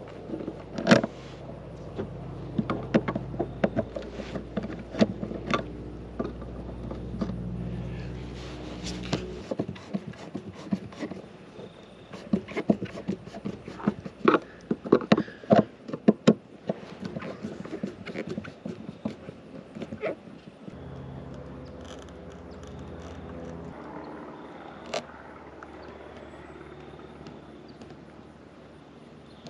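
Scattered clicks, taps and knocks of hand work on a plastic clearance-light housing on a motorhome roof, a screwdriver driving its screws, thickest midway through. A low steady hum runs underneath and shifts a few times.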